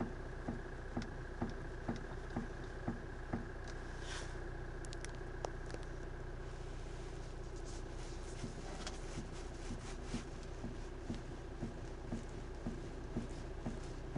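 Knocking in the steering of a Hyundai Santa Fe DM: short, sharp knocks about two a second over the steady hum of the idling engine, thinning out for several seconds in the middle before resuming. The knock is the steering fault being demonstrated.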